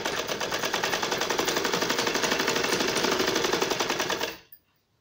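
Sewing machine stitching a folded cloth strip at speed: a rapid, even clatter of the needle mechanism that stops sharply about four seconds in.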